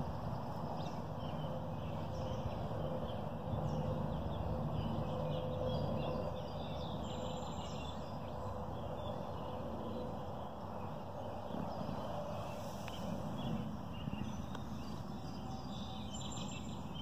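Outdoor ambience: small birds chirping now and then over a steady low background noise.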